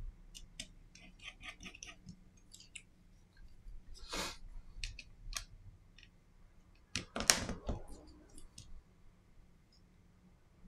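Small clicks and taps of a precision screwdriver and tweezers against the parts and screws of an opened smartphone, with a brief louder scrape about four seconds in and a short cluster of louder knocks around seven seconds.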